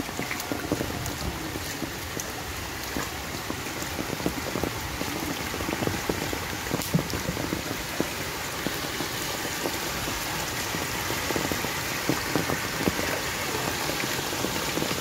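Heavy rain falling steadily, with scattered drop ticks, mixed with floodwater running across a dirt road; the rush grows slightly louder.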